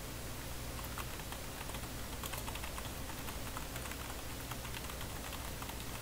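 Typing on a computer keyboard: light, irregular key clicks over a steady low hum.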